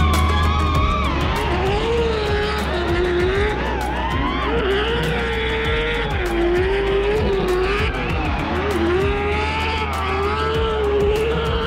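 Car tyres squealing through a long slide, the pitch wavering up and down as the skid goes on, with background music under it.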